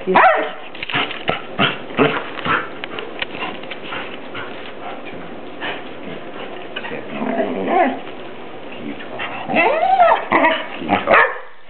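Excited shepherd-mix dog whining and yipping in short calls that bend up and down in pitch, with a longer run of whines near the end.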